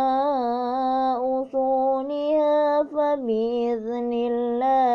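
A single voice chanting Quran recitation in slow melodic tajweed style, drawing out long held notes that step up and down in pitch, with only short breaths between them.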